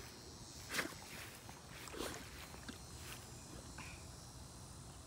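Soft water splashes from a Great Dane wading in shallow pond water, two clearer sloshes about a second and two seconds in, then a few fainter ones.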